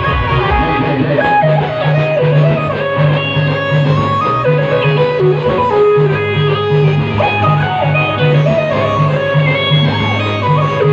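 Band music with a plucked-string lead melody moving in short steps over a steady, repeating bass beat.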